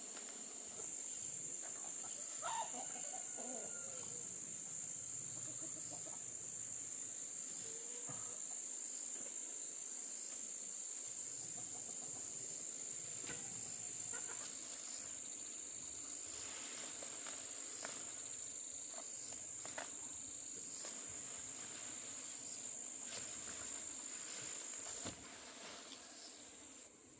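Insects droning in a steady high-pitched buzz that stops near the end, with a chicken calling once about two and a half seconds in and a few faint clicks.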